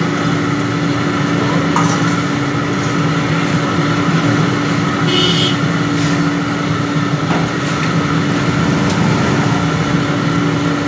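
Batter fritters deep-frying in a large iron kadai of hot oil: a steady sizzle over a constant low drone, with a few brief clicks.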